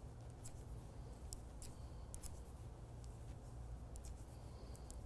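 Faint, irregular clicking of metal-tipped circular knitting needles tapping together as stitches are worked, over a low steady hum.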